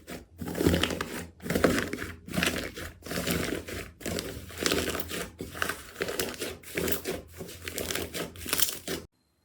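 Hands squeezing and kneading slime, making crackling, crinkly squelches in a repeated rhythm of a little over one a second, which cuts off abruptly near the end.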